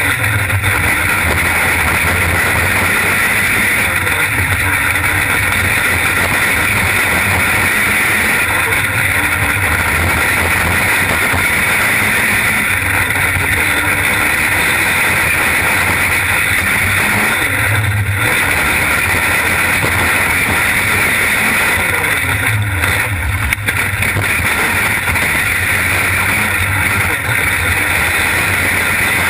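Onboard audio from a winged dirt-track sprint car at racing speed: its engine runs loud and steady under wind rush over the camera microphone, with a few brief dips.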